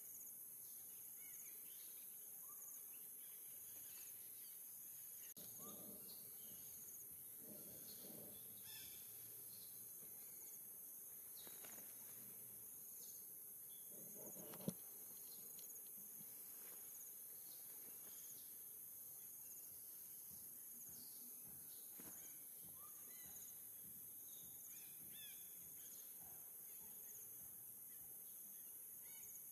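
Near silence: faint outdoor ambience with a steady high-pitched hiss, a few soft rustles and one sharp click about halfway through.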